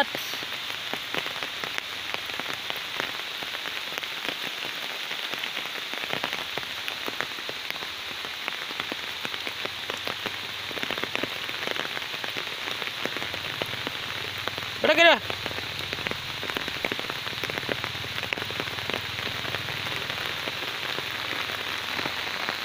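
Steady rain falling, a continuous pattering hiss made of many small drop ticks. A person gives one short call about fifteen seconds in.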